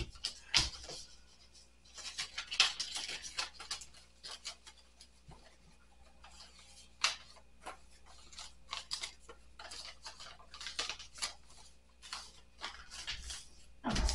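Paper rustling and scraping in irregular spurts, with a few soft knocks, as bills and checks are handled and put into envelopes.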